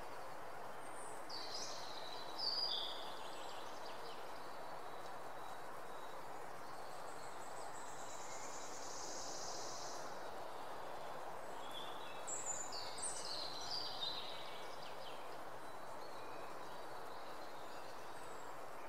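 Outdoor nature ambience: a steady low rush with small birds chirping in two short flurries, about two seconds in and again around twelve to fourteen seconds, and a high buzzing trill in between.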